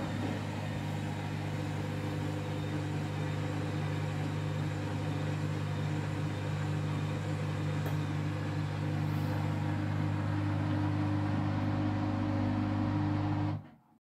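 Candy front-loading washing machine running with a steady low hum while its drum turns a full load of wet towels; the sound stops abruptly near the end.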